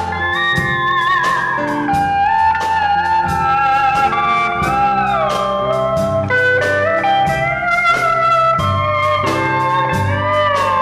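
Pedal steel guitar playing an instrumental solo, its chords sliding and bending smoothly from note to note. A band keeps a steady beat underneath.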